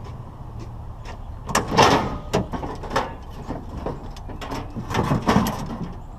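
Scrap sheet metal being cut and handled: a run of loud metallic clanks and scrapes in clusters, strongest between about a second and a half and five and a half seconds in.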